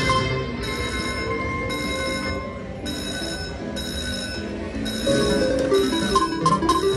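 VGT Neptune's Gold slot machine ringing its electronic win bells in repeated bursts as a red-screen win counts up on the credit meter, over a layer of slot music.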